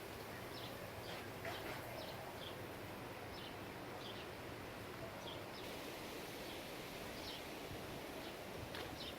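Wind rustling through tree leaves, a steady hiss, with short high bird chirps scattered throughout.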